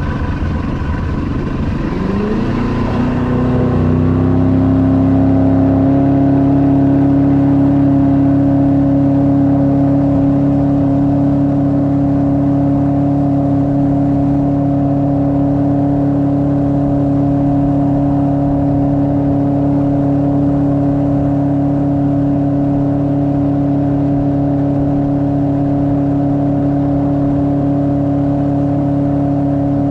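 Jet outboard motor on a river boat, its pitch rising over the first few seconds as it is throttled up, then running at a steady pitch at cruising speed.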